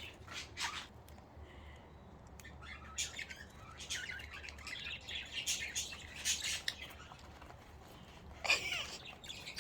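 Several pet budgerigars chirping and chattering in short, scattered calls, with a louder flurry of chirps near the end.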